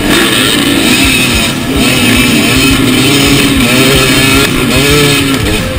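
A pack of enduro motorcycles revving hard and accelerating away together off a dirt start, several engine notes rising and falling over one another.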